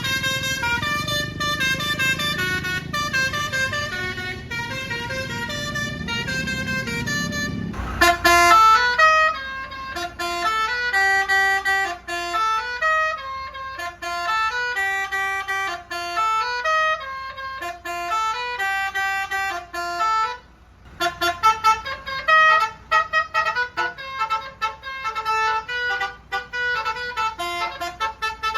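Bus 'telolet basuri' musical horn playing a tune of stepped notes. A low engine rumble runs underneath for about the first eight seconds; then a loud blast, and the tune goes on, breaking off briefly past the middle before quicker, choppy notes.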